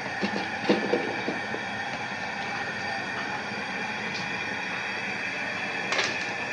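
Steady rush of an outdoor propane cooker's burner under a pot at a rolling boil. Within the first second and a half come a few knocks and splashes as potatoes are dropped into the pot, and there is another sharp knock near the end.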